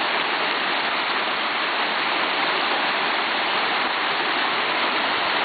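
Steady rushing of a small mountain stream flowing over rocks.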